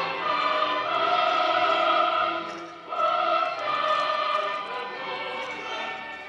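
Solemn choral music with long held notes. It dips briefly about three seconds in, then goes on.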